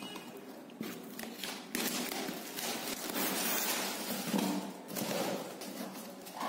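A taped cardboard shipping carton being handled and pulled open by hand: stretches of scraping and ripping noise with sudden starts and stops, and a few thuds.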